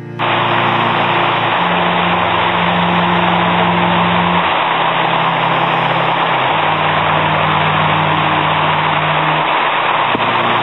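Heavy rain pouring down in a steady, loud hiss, starting just after the beginning. Slow background music of long held low notes plays underneath.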